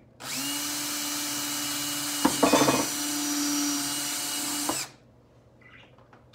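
Cordless drill spinning as its bit bores through the wall of a plastic jug. It runs steadily for about four and a half seconds, with a louder, rattling stretch about two seconds in, then stops.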